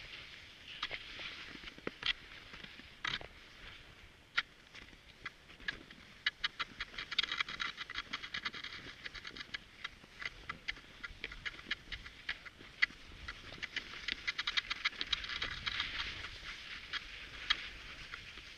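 Cross-country skis and poles on snow: a run of crisp clicks and scraping over a steady hiss, quickening into dense runs about a third of the way in and again near the end.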